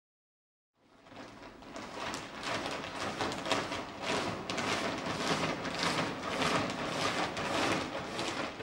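Checked woven-plastic bag rustling and crackling as it moves across the floor. The dense crackle starts about a second in, swells, then holds steady.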